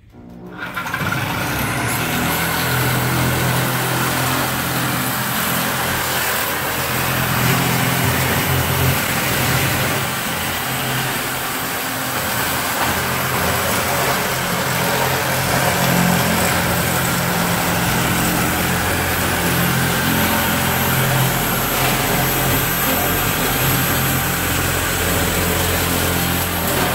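Electric double-cut metal shears running steadily while cutting across a ribbed metal roofing panel. The cutting starts about half a second in.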